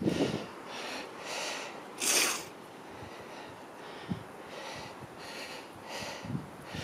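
A person breathing hard in quick, noisy breaths, with one louder exhale about two seconds in.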